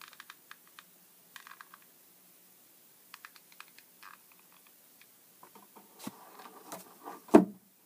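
Light, scattered clicks and taps from working a hot glue gun over a can lid, with handling noise building near the end and one loud knock just before the end.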